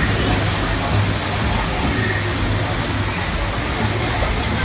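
Steady rushing outdoor noise with a low rumble underneath and faint voices of people nearby.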